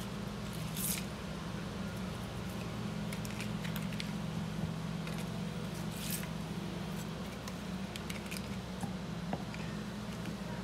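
Blue hand-held lime squeezer being worked over a bowl of chopped red onion, giving a couple of brief squishes and clicks, about a second in and again about six seconds in, over a steady low hum.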